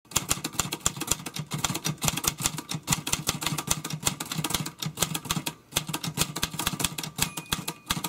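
Typewriter typing sound effect: rapid key clicks, several a second, with a short break about five and a half seconds in.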